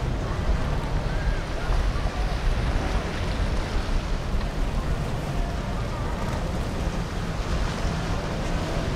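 Steady wind rush on the microphone over the low rumble of boat engines and the wash of water.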